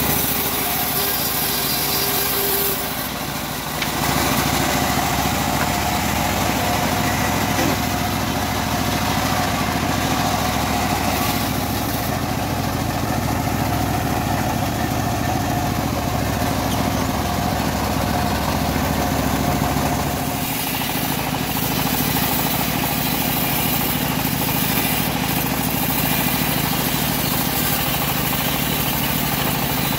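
Engine of a homemade bandsaw mill running steadily with the band blade spinning. For the first few seconds the blade is finishing a cut through teak, which stops about three seconds in.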